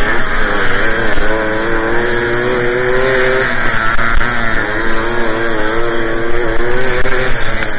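Small two-stroke moped engine revving hard under load while riding, its pitch climbing, easing off about halfway through, then picking up again.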